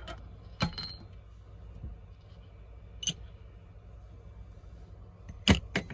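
Metal impact-wrench hammer assemblies being handled and lifted off a stainless-steel scale platform: a few scattered clinks and knocks, the loudest two close together near the end.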